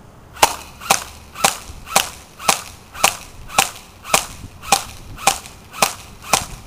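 Classic Army MP5A2 airsoft electric gun firing semi-auto, a dozen single shots at an even pace of about two a second.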